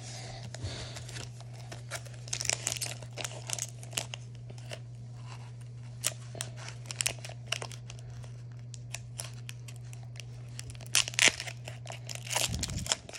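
Crinkling and tearing of a Pokémon card booster pack's foil wrapper as it is handled and opened, in many short crackles that come thickest near the start and near the end, over a steady low hum.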